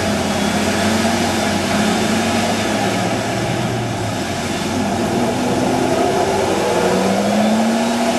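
Lifted Toyota Tacoma pickup's engine working hard as it drives through deep mud, its tires spinning and flinging mud. The engine pitch dips and rises, climbing again near the end as the throttle is pressed.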